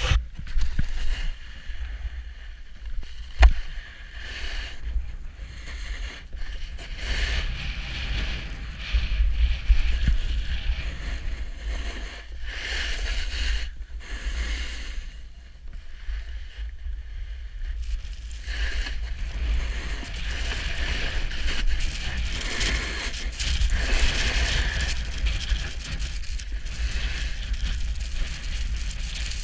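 Snowboard riding on packed snow: the board's base and edges hiss and scrape over the snow in swelling and fading runs while wind buffets the action camera's microphone as a steady low rumble, with one sharp knock about three and a half seconds in.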